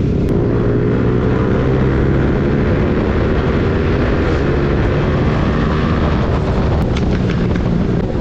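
Motorcycle engine running steadily under way with a rush of noise. Near the end come a few sharp pops, the exhaust crackle of a tuned Royal Enfield GT 650.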